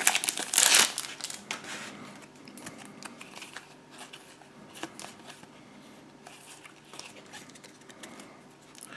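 Foil trading-card booster wrapper crinkling loudly as it is torn open during the first second, followed by quieter rustling and light clicks of the cards being handled and fanned.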